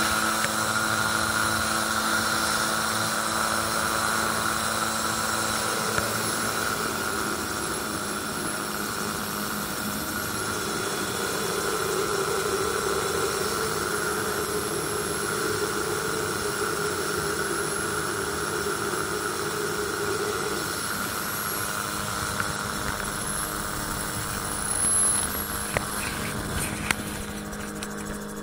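Magni M16 autogyro in cruising flight: the steady drone of its pusher engine and propeller, heard in the open cockpit over rushing air noise.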